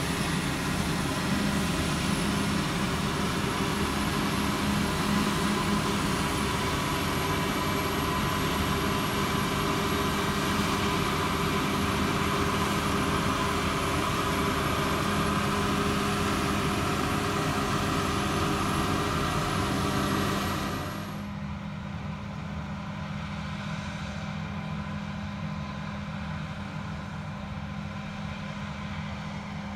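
Combine harvester running in a field: a steady engine and machinery drone with a high whine. About two-thirds of the way through the sound drops suddenly and the whine stops, leaving a quieter drone.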